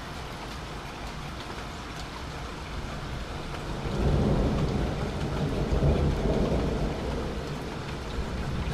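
Steady rain falling, with a roll of thunder swelling about four seconds in and rumbling low for a few seconds before fading.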